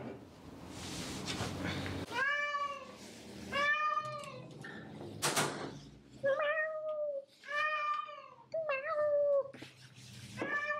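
Persian cat meowing over and over, about six drawn-out meows each under a second long, with a short noisy burst between some of them.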